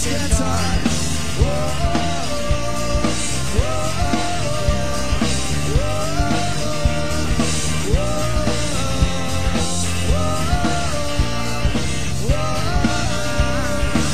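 Rock music with a steady beat and a lead line that slides up into a held note about every two seconds.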